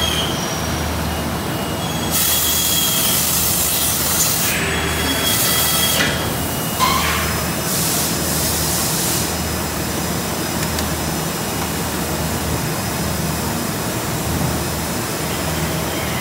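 Plastics-factory machinery running: a steady hum with a low throb about once a second, cut by loud hissing bursts in the first half.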